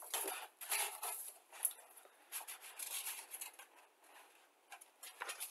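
Paper instruction sheet rustling and crackling as it is lifted, folded back and moved, in irregular bursts with short pauses between them.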